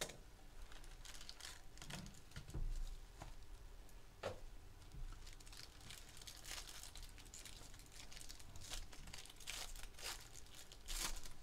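Foil wrapper of an Upper Deck Premier hockey card pack crinkling and being torn open by hand in a run of faint, irregular crackles and rips, with a soft thump about two and a half seconds in.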